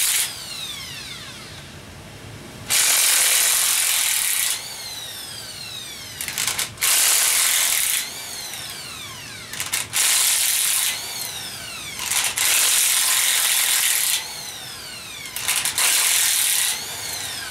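Corded Makita electric impact wrench hammering on an engine bolt in about five bursts of one to two seconds each, its motor whining down after each trigger release. The bolt does not break loose.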